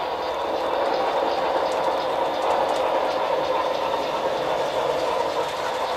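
Model railroad freight train rolling past on the layout track: a steady whirring rumble of the cars' wheels, with faint clicks as they pass over the rail joints.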